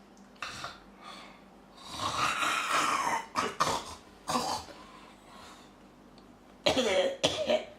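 A man snoring in irregular loud bursts, played for comedy as a whale-like snore: a long rising-and-falling snore about two seconds in, shorter sharp snorts after it, and a cluster of them near the end.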